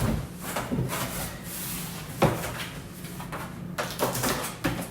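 Handling and packing sounds: rustling with a few knocks of things set down, the sharpest about two seconds in.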